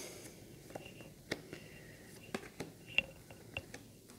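Tarot cards being dealt one by one onto a cloth-covered table: several light, separate clicks and taps as each card is snapped down.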